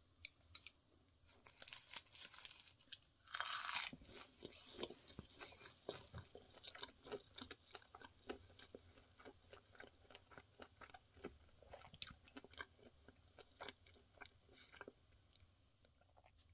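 Someone bites into a crisp roasted seaweed wrap of fried rice, crunching loudly about two to four seconds in, then keeps chewing with many small crunches and mouth clicks.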